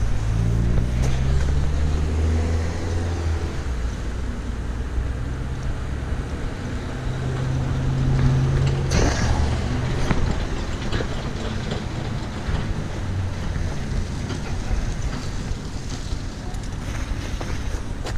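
Road traffic: cars driving past with a low engine hum, swelling in the first few seconds and again about eight seconds in, with some wind on the microphone.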